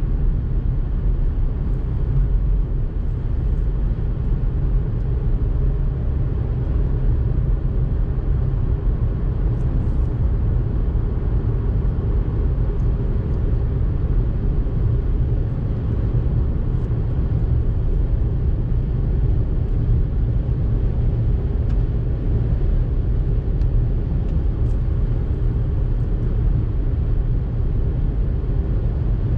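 Car driving at road speed, heard inside the cabin: a steady low rumble of tyre, road and engine noise.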